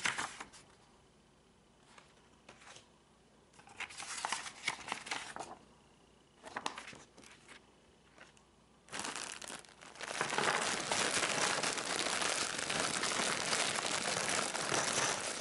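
Short rustles of paper and cardboard as the flyer and contents are taken out of a jigsaw puzzle box. From about nine seconds in comes a steady, louder crinkling of the plastic bag of puzzle pieces as it is opened and the pieces are tipped out.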